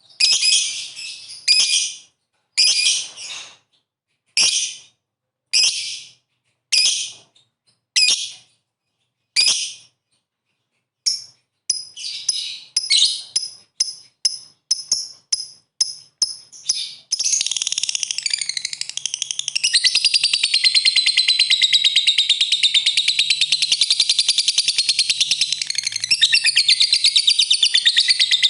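Lovebird calling: sharp, separate chirping bursts at first, then quickening about a third of the way in, and from about two-thirds through an unbroken, fast chattering trill. This is the long 'ngekek' chatter that is played to lure other lovebirds into calling.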